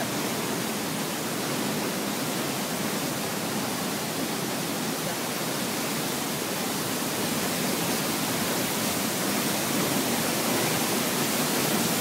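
Powerful waterfall in heavy flow, water plunging down a cliff and crashing below: a steady, unbroken rush.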